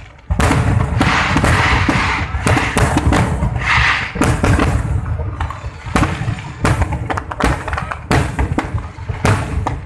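Aerial firework shells bursting in a dense, continuous barrage of booms that starts abruptly just after the beginning, with a hissing crackle under the bursts in the first few seconds.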